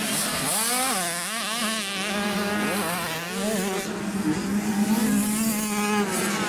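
65cc two-stroke motocross bike engines buzzing at high revs, their pitch rising and falling again and again with the throttle, over a steady low drone.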